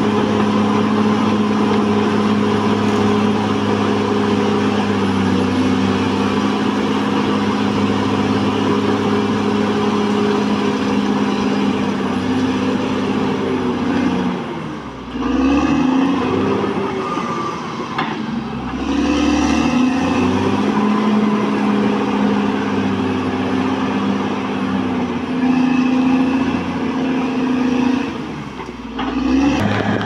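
Caterpillar D6R XL bulldozer's diesel engine running steadily under load. Its revs drop and climb again about halfway through, once more shortly after, and again near the end.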